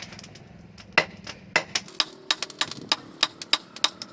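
Hand hammer striking metal in a quick, uneven run of ringing blows, one every second or so at first, then about three a second from about two seconds in.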